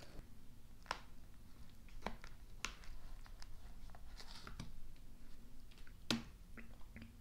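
Handling noise from a packaged sandwich's cardboard box and wrapping as it is opened and a sandwich half is pulled out: scattered light clicks and rustles, with one louder tap about six seconds in.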